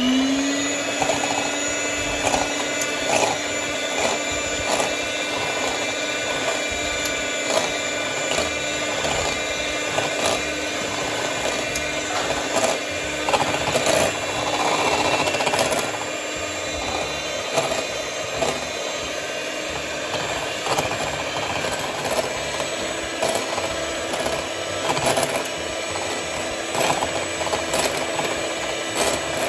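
Electric hand mixer's motor winding up and then running at a steady speed, its beaters whisking eggs in a glass bowl with irregular clicks as they knock the glass. The eggs are being beaten toward soft peaks.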